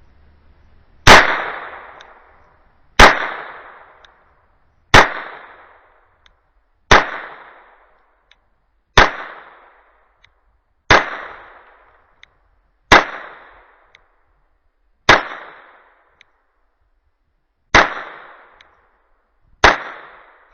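Glock 44 .22 LR pistol firing CCI Mini Mag rounds in slow aimed fire: ten shots about two seconds apart, each a sharp crack with a short ringing tail, the ninth after a slightly longer pause.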